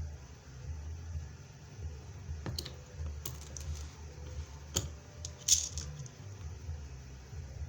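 Beading work with a rivet machine: a handful of sharp clicks and light clinks of beads, rivets and the machine's metal parts, spread from about two to six seconds in, the loudest a little after five seconds. A low steady rumble lies underneath.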